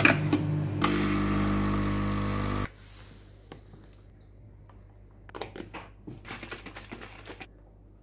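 A small electric motor or appliance hums steadily for about two seconds and cuts off suddenly, followed by a run of light clicks and taps.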